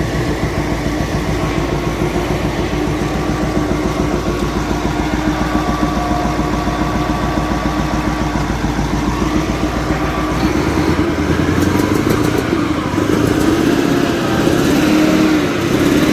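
Caterpillar 988F2 wheel loader's diesel engine running with an even pulsing beat; about ten seconds in, the engine note changes and its pitch rises and falls as the engine speed varies. It is on test after the broken cylinder 5 injector hold-down bolt was repaired.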